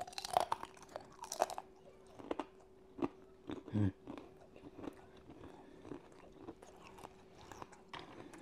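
Crunchy bites into thin, crisp bacon, then chewing close to the mouth. A quick run of sharp crunches comes in the first second and a half, followed by scattered smaller crunches as it is chewed.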